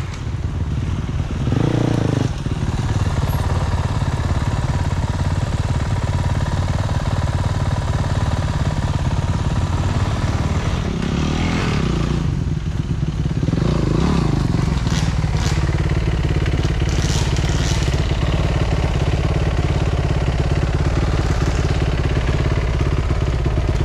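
Dirt bike engine running while the bike is ridden, the revs rising and falling a few times as the throttle is worked.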